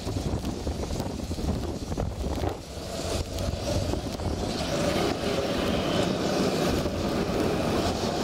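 Articulated electric tram passing close by, its running gear and motors giving a steady hum that grows louder about three seconds in and holds while the cars go past.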